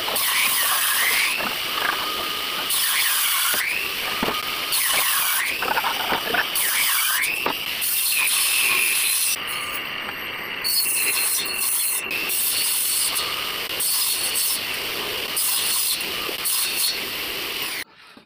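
Table saw running and cutting a sheet of HPL laminate, with a loud whine that dips and climbs back several times as the sheet is fed into the blade. It stops abruptly near the end.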